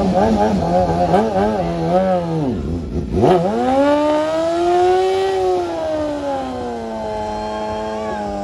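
BMW sportbike engine revved hard for a burnout: quick blips of the throttle for the first two seconds, then, after a brief drop, held at high revs with the rear tyre spinning, the pitch climbing gently, easing back and settling steady.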